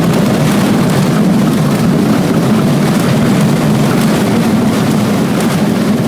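Steady engine, propeller and airframe noise inside the cabin of a 1958 Cessna 182 during the landing rollout just after touchdown, an even low drone with no letup.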